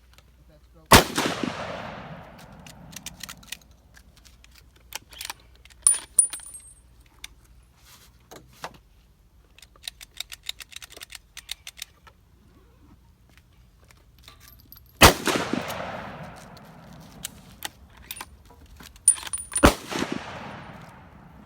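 Three shots from a Ruger American bolt-action rifle in .270 Winchester, each trailing off in a fading echo; the first comes about a second in and the last two near the end, about four and a half seconds apart. Metallic clicks between the shots, typical of the bolt being worked.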